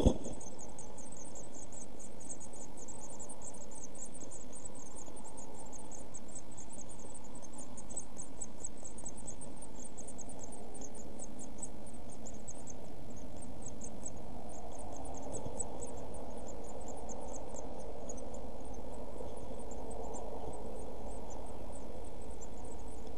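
Week-old blue tit nestlings begging in the nest box: rapid, very high-pitched cheeping, many calls a second, dense for the first several seconds and then thinning out. A steady low electrical hum runs underneath.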